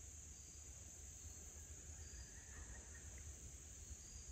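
Faint, steady chorus of crickets and other insects, a continuous high-pitched trill, over a low rumble.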